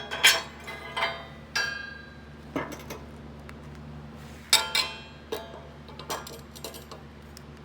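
Glass clinking: a string of about nine sharp clinks, each ringing briefly, coming irregularly.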